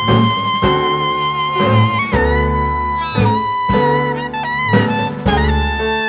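Background instrumental music with a steady beat: a lead melody over guitar, bass and drums.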